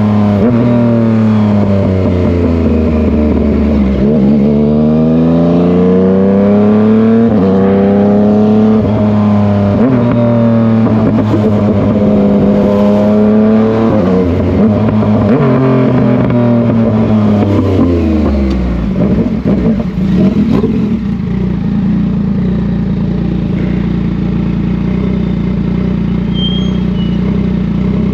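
Yamaha MT-09's three-cylinder engine repeatedly revving up and backing off, its pitch rising and falling. About two-thirds of the way in it drops back, with a few sharp pops on the overrun, and settles into a steady low idle.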